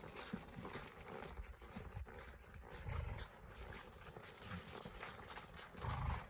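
Saddled horses walking, hooves clopping irregularly, with heavier thumps about three seconds in and near the end.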